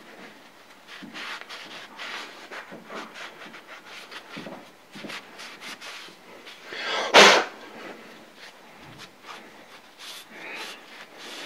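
Cloth rag rubbing and wiping a wet cast aluminum rotary-table dial dry, in short, irregular strokes, with one louder, brief noise about seven seconds in.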